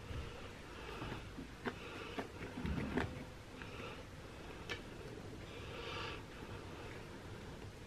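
Quiet handling sounds of hands pressing and pinching raw dough on a silicone baking mat in a metal sheet pan, with a few light clicks and a soft thump about three seconds in. A person's breathing is heard now and then.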